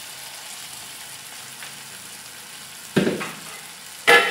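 Tomato, onion and chilli masala with chilli powder sizzling steadily in hot oil in an aluminium kadai. Two sudden louder knocks come near the end, about a second apart.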